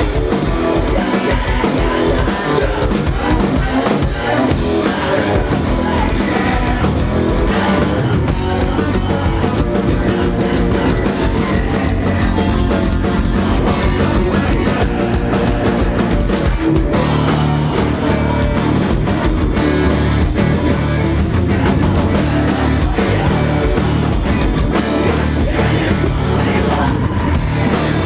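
Live rock band playing a song with electric guitar and drum kit. The music is loud and dense throughout, and its texture changes about eight seconds and again about seventeen seconds in.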